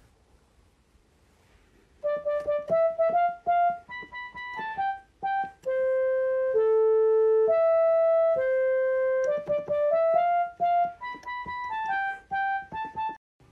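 Yamaha PSS PortaSound portable electronic keyboard playing a simple one-note-at-a-time melody. It starts about two seconds in with quick short notes, holds a few long notes in the middle, then returns to quick notes.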